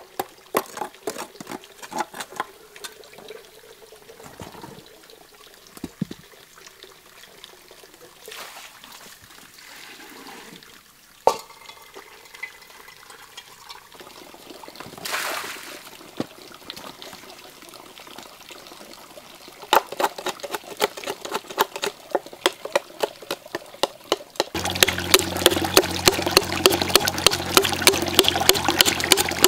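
Water running from a bamboo pipe while a blade scrapes and chips charred wood out of a burnt hollow log. Near the end the scraping becomes louder and faster, several strokes a second, over a steady rush of water.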